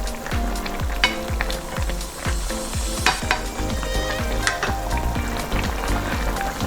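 Food sizzling in a pan as it is stirred, with a few sharp clicks of a utensil against the pan, under background music with a steady thumping beat.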